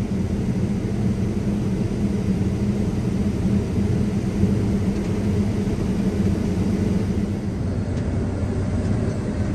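New Holland combine running steadily during soybean harvest: an even, low machine drone with a steady hum that does not change.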